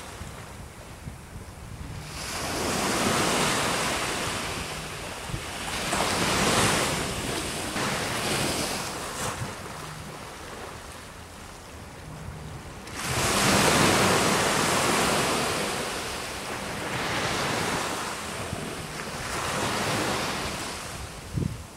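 Surf breaking and washing on the shore, swelling and ebbing every few seconds, over a steady low rumble of wind on the microphone.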